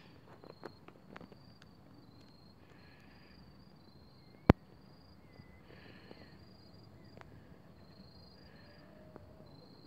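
Insects chirring steadily at a high pitch by the water, with a short rasping call about every three seconds. A single sharp click about four and a half seconds in is the loudest sound.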